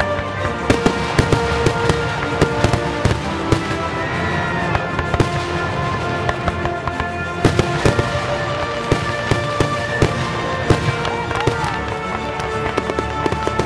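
Aerial fireworks shells launching and bursting in rapid, irregular succession, sharp bangs several a second through the whole stretch, with music playing underneath.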